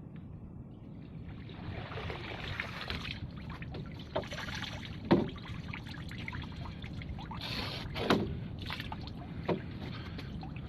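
Crab pot being hauled out of the water: water splashing and trickling off it, with a few sharp knocks about halfway through and near the end.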